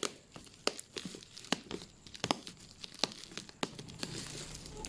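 Crinkling and crackling, with scattered sharp clicks every half second to a second.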